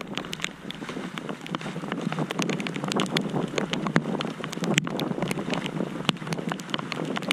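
Wind buffeting the microphone over a dense patter and splash of water on a flooded, wet pavement, with many small irregular ticks.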